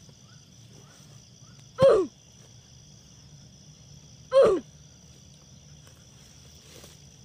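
Two loud, short animal calls, each falling in pitch, about two and a half seconds apart, over a steady high-pitched insect chirring.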